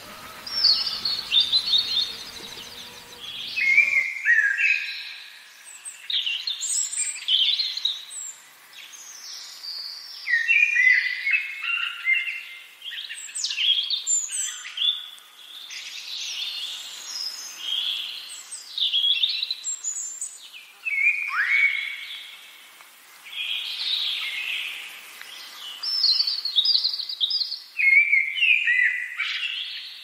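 Songbirds singing and chirping, a dense run of short, varied whistled phrases and chirps from several birds. A low background noise under them cuts off suddenly about four seconds in.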